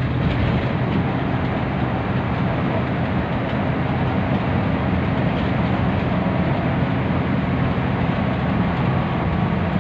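Bus engine and tyre and road noise at highway speed, heard inside a moving coach: a steady low hum under an even rushing noise.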